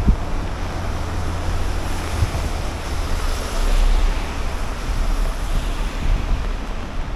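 Wind buffeting the microphone: an uneven low rumble under a steady rushing hiss, swelling in a gust about halfway through.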